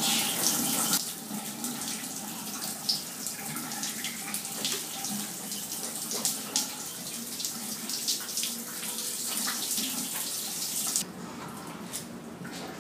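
Handheld shower sprayer running, water spraying and splashing onto a wet Shih Tzu's coat during the final rinse. The spray cuts off suddenly about eleven seconds in.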